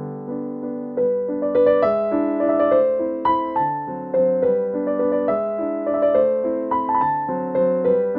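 Background piano music: struck notes that fade out over held chords, with a livelier melody joining about a second in.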